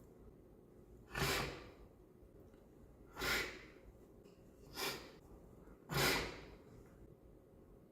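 A man sniffling four times: short, sharp breaths in through the nose, each about half a second long, spaced one to two seconds apart.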